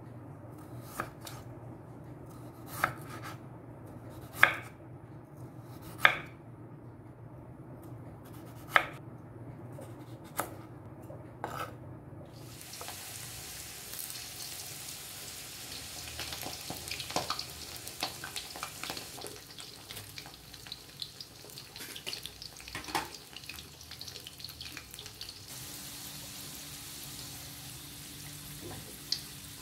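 Seven or so sharp knocks, one every second or two. Then, from about twelve seconds in, food starts sizzling as it fries in a pan, with clinks and scrapes of stirring through the sizzle.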